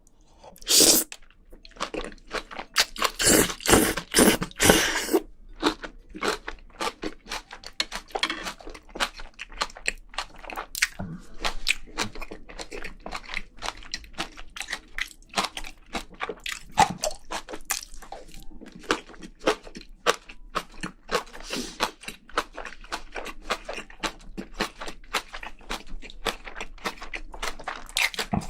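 Close-miked eating of spicy braised seafood: a continuous run of wet chewing and small crisp crunches, loudest and densest about three to five seconds in.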